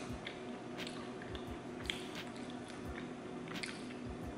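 Close-miked chewing of a mouthful of soft burrito: moist, squishy mouth sounds with irregular soft thuds, two or three a second.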